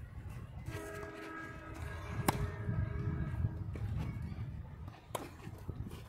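Tennis ball struck by rackets twice in a rally, about three seconds apart, the first hit the louder, over a low rumble. A steady held tone of several pitches sounds in the background for about three seconds.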